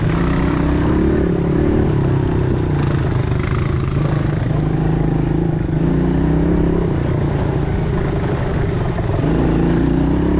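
ATV engine running on the move, its pitch rising and falling with the throttle.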